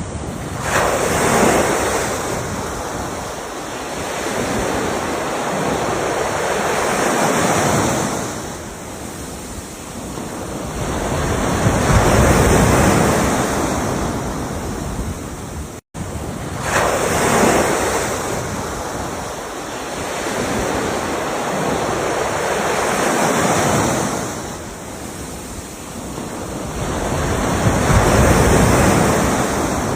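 Ocean waves washing in, each surge swelling and fading about every five or six seconds. A brief dropout a little past halfway, after which the same pattern of surges repeats as a loop.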